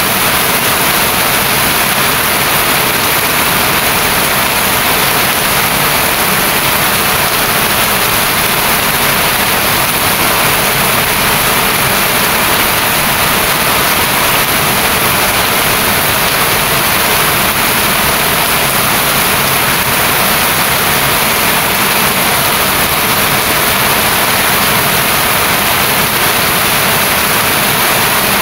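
Heavy rain falling steadily, a loud, even hiss that does not let up.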